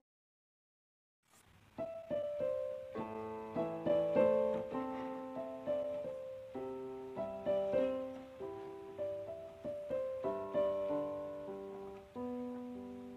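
Piano music: a slow piece of struck notes and chords that fade away, coming in after about a second of silence.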